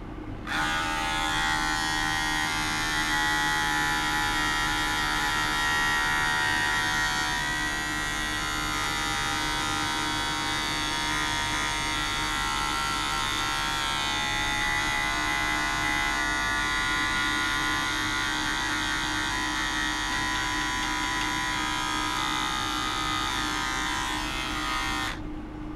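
Battery electric shaver running with a steady buzz, its head held against a small glass jar that sits in a plastic bowl. It switches on about half a second in and off shortly before the end, over a faint steady hum.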